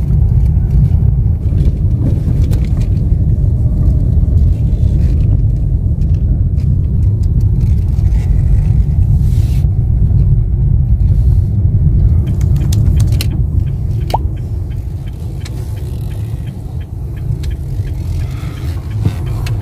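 Steady low rumble of a moving car heard from inside its cabin, with a few faint clicks; it eases somewhat about fourteen seconds in.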